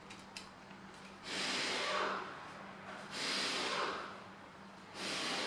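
Three bursts of hissing noise, each about a second long and roughly two seconds apart, over a faint steady hum.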